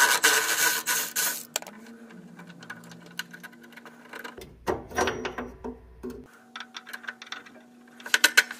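A cordless ratchet runs briefly at the start, backing off the nut on a worn drive-belt idler pulley. Scattered metal clicks and clinks follow as the nut, bolt and pulley are handled and pulled off, with a quick run of clicks near the end.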